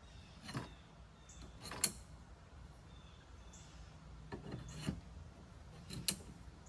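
Metal support poles of a prop frame being handled and fitted together: several separate knocks and scrapes, the sharpest about two seconds in.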